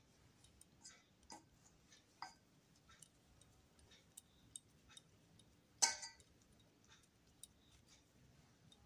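Faint scattered taps and clicks of dough balls being pressed between the palms and set down in a stainless steel bowl, with one louder knock about six seconds in.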